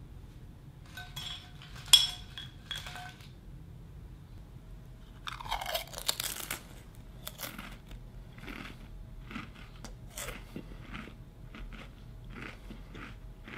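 A metal spoon clicks against a ceramic bowl a few times with a short ring, then potato chips are bitten and chewed close to the microphone: a burst of loud crunching about five seconds in, followed by many short, irregular crunches.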